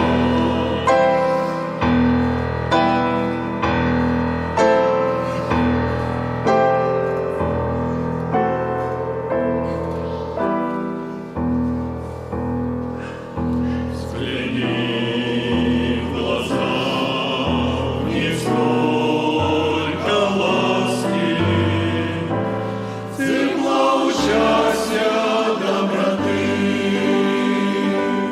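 Choir singing a Christian song with instrumental accompaniment: a steady bass pulse under the voices at first, giving way to fuller sustained singing about halfway through.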